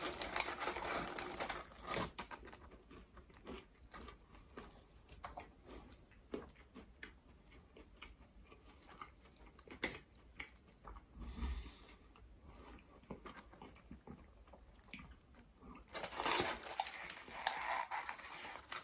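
A person biting into and chewing a croissant held in a paper wrapper, with small mouth clicks throughout and louder bursts near the start and again near the end.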